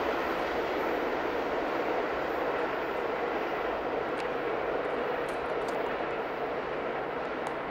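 Passenger train passing close by: the steady rumble and roar of its wheels on the rails, easing off slowly, with a few faint clicks.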